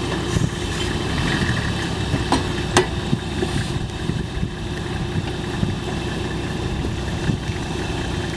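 Off-road SUV engine idling steadily while the vehicle sits stuck in sand, with two sharp clicks about two and a half seconds in.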